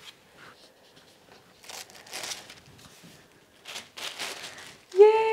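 Protective paper sheet being peeled off a new MacBook Pro's screen, crinkling and rustling in several short bursts. A brief, loud high-pitched tone cuts in right at the end.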